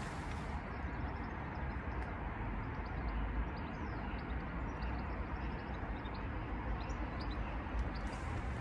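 Steady outdoor background noise on an empty railway platform, a low rumble with faint bird chirps scattered through it.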